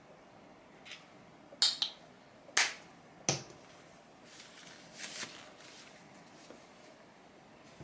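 Craft supplies being handled on a desk: several sharp clicks and knocks in the first few seconds as a plastic paint tube and a paint palette are set down, then a softer rustle as a fabric roll of paintbrushes is picked up and opened.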